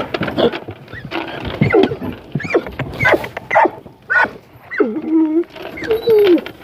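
Puppies whining and yipping in a run of short cries, about two a second, sliding up and down in pitch.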